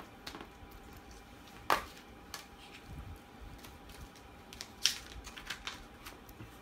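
Plastic DVD case being handled and opened: two sharp clicks, one about two seconds in and one near five seconds, among lighter ticks and rustling as the paper insert is drawn out.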